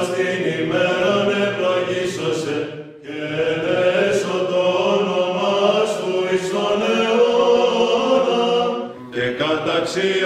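Orthodox monks' unaccompanied chanting: men's voices holding long, slow notes with no instruments. The singing breaks off briefly about three seconds in, then carries on.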